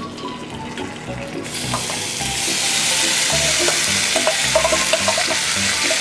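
Chopped sundae (Korean blood sausage) in sauce, tipped from a steel bowl into a hot oiled frying pan. It starts sizzling suddenly about a second and a half in and keeps frying steadily.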